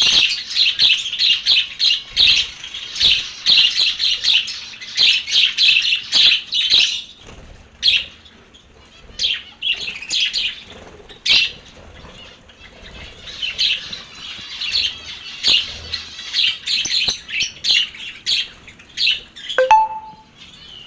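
Lovebirds chattering: rapid strings of shrill, high-pitched chirps and squawks, coming in bursts with short pauses.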